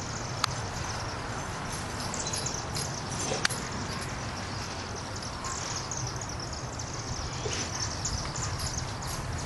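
A large flock of chimney swifts chattering as they circle and drop into a chimney to roost: many short, high, falling chips overlapping, over a steady low background noise. Two sharp clicks stand out, about half a second in and about three and a half seconds in.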